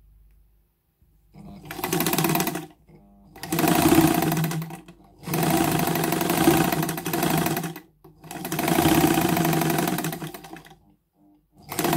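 Vintage semi-industrial heavy-duty Jones D-66DL straight-stitch sewing machine stitching through fabric. It runs four times for one and a half to three seconds each, stopping briefly between runs, and starts a fifth run near the end.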